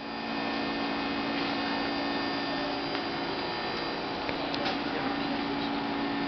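R46 subway train standing at the platform with its equipment running, giving a steady hum made of several constant tones over a background rush. A few faint clicks come about four and a half seconds in.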